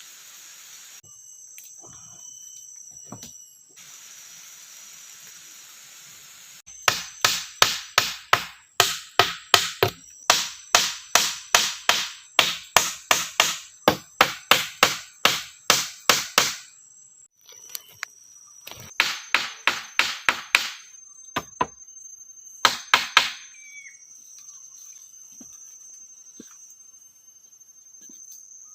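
Rapid, evenly paced blows of a tool striking wood, about three a second, in a long run and then two short runs. Insects keep up a steady high trill behind them.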